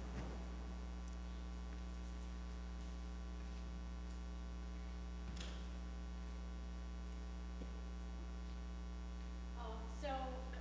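Steady electrical mains hum on the sound system, an even low buzz with no other sound, and a faint click about halfway through.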